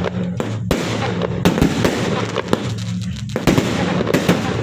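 Fireworks and firecrackers going off, a rapid, irregular series of sharp bangs and cracks several times a second, over a steady low hum.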